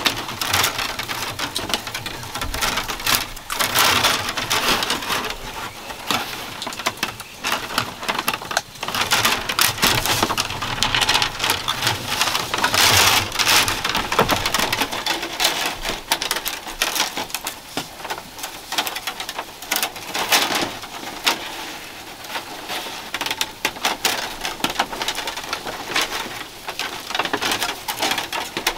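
Thin bamboo strips rustling, clicking and scraping against each other and the split-bamboo floor as they are threaded over and under by hand, weaving a mat. A dense, irregular crackle that gets busier at times.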